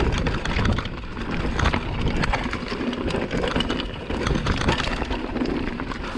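Mountain bike descending a rocky dirt trail: tyres crunching over stones and the bike rattling, with many sharp knocks as it jolts over the rocks.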